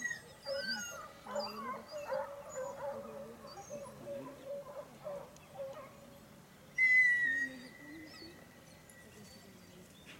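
Dogs baying and yelping far off, with birds chirping. About seven seconds in, a long high whistle starts loud and holds steady as it fades.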